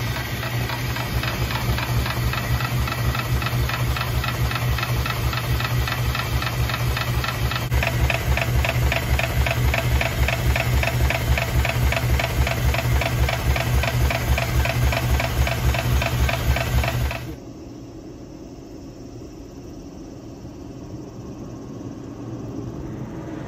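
Electric block-ice shaving machine running: a steady motor hum with a fast, even scraping rhythm as the spinning blade shaves the ice, the scraping growing stronger about a third of the way in. It cuts off suddenly, leaving a low background noise.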